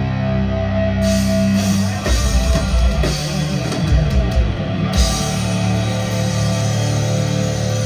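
Loud rock music with drums and distorted electric guitar, held chords over a drum kit, with a run of heavier drum hits in the middle.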